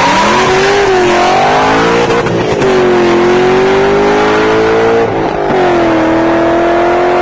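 Racing car engine accelerating hard. Its pitch climbs and drops sharply at two gear changes, about two and five seconds in.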